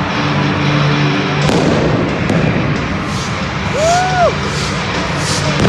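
Arena pyrotechnic flame cannons firing in a series of loud rushes over PA music and crowd noise, starting about a second and a half in. A wailing tone rises and falls once near the end.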